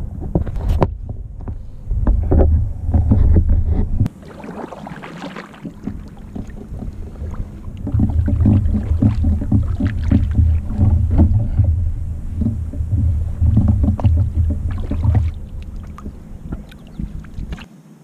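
Kayak-mounted action camera picking up low rumbling and repeated knocks and clicks as its boom arm is handled and adjusted; the rumble breaks off abruptly about four seconds in, returns stronger a few seconds later, and drops away again just before the end.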